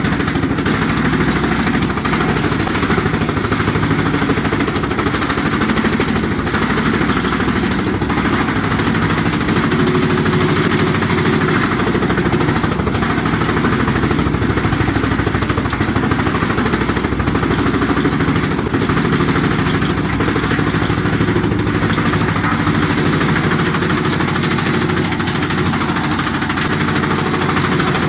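Skorpion 650 EB stationary drum wood chipper running steadily, a continuous machine drone with a few faint knocks.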